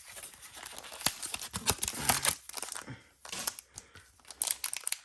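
Foil wrapper of a Pokémon booster pack being torn open and crinkled by hand: a run of crackles and rips with a short lull about three seconds in.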